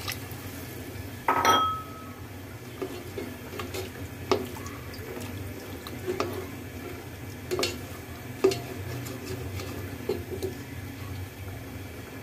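A spatula stirring curry in an aluminium cooking pot, knocking against the pot's side now and then. The loudest is a ringing clank about a second in, followed by lighter clinks spread through the rest; a steady low hum runs underneath.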